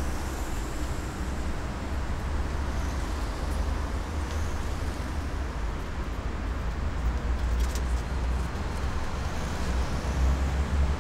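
Urban street traffic: cars and a van driving past close by, with a steady low rumble of engines and tyres.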